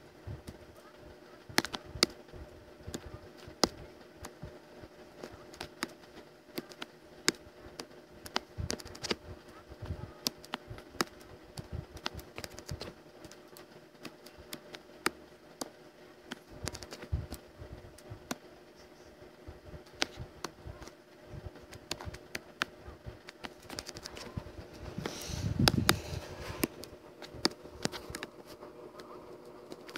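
Scattered, irregular clicks typical of computer keyboard and input-device use over a steady electrical hum, with a brief louder rush of noise about 25 seconds in.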